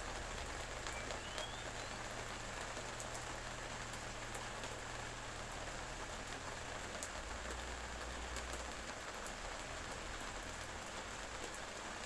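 Steady rain falling, an even hiss with separate drops ticking now and then. A faint short rising whistle comes about a second in.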